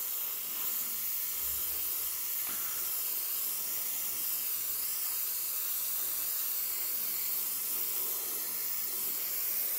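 FA-180X gravity-feed airbrush (0.3 mm nozzle) spraying thinned acrylic paint: a steady, even hiss of air with a lot of air let through, so that the paint dusts a little.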